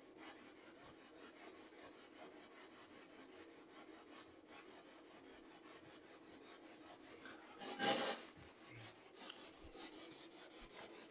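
Near silence in a quiet room, broken about eight seconds in by one brief scuffing noise lasting about half a second, followed by a few faint ticks.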